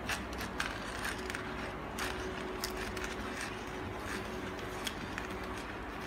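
Stainless-steel manual coffee grinder being handled and worked by hand: irregular small metal clicks and scrapes from its parts, over a faint steady hum.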